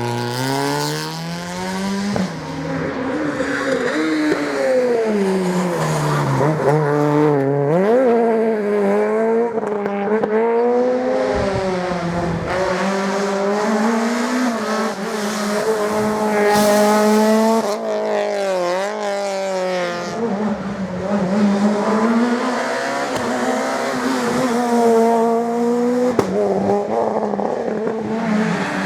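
Rally car engines revving hard under load. The pitch climbs, then drops sharply at each gear change, again and again.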